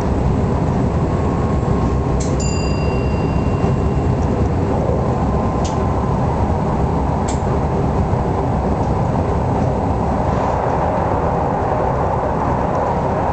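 An electric train running at speed, heard from inside the driver's cab: a steady, loud rumble of wheels on rail, with a few sharp clicks and a brief high whine about two seconds in.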